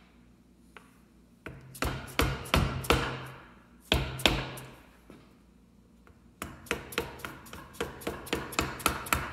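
A mallet tapping on a block held against an ARB locker carrier, driving the carrier and its bearings into a Dana 30 axle housing. There is a cluster of about half a dozen sharp taps, two more about four seconds in, then a quicker run of lighter taps near the end.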